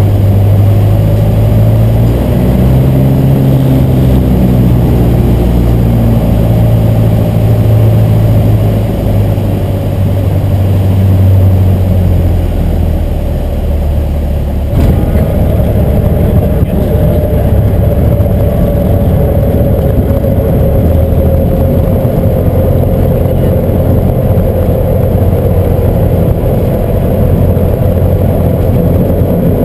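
Piper Warrior II's Lycoming O-320 four-cylinder engine and propeller heard from inside the cabin, running at low power through the final approach, landing and rollout. The sound changes suddenly about halfway through, while the plane is on the runway.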